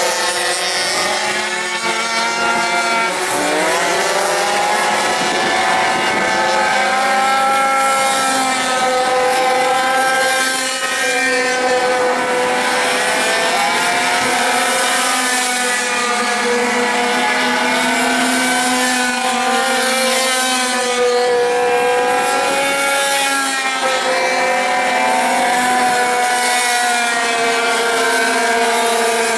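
Several pocket bikes' small two-stroke engines buzzing at high revs in a race, their pitches rising and falling as the riders rev up and ease off, with a louder swell every few seconds as a bike passes close.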